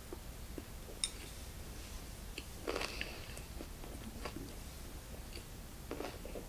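Close-miked chewing of a mouthful of bossam with kimchi: soft wet mouth clicks and smacks, with a louder burst of chewing about three seconds in and another near the end.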